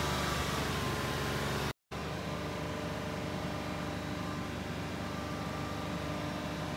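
Toyota 4Runner engine idling steadily at the exhaust tip while it burns off a Seafoam treatment, with a brief gap about two seconds in.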